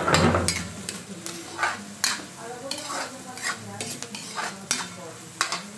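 Metal spatula scraping and stirring chopped onion, garlic and ginger around a metal wok, about two strokes a second, over the steady sizzle of them frying in oil.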